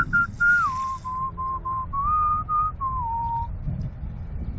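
A man whistling a short tune through his lips, a few held notes that step down, rise, then drop lower before stopping about three and a half seconds in. A brief hiss comes at the start.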